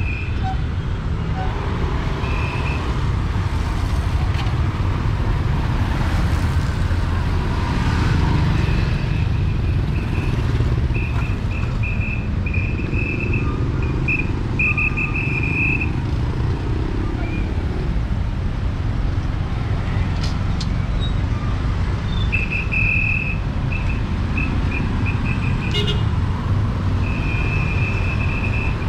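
Street traffic: a steady rumble of passing road vehicles. Over it, a high-pitched beeping comes in runs of quick pulses, several times.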